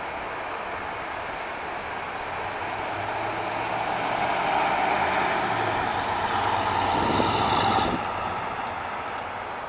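1962 Pontiac Grand Prix's 389 cubic-inch V8 running as the car drives at low speed, with engine and tyre noise growing louder as it approaches. The sound drops off suddenly about eight seconds in.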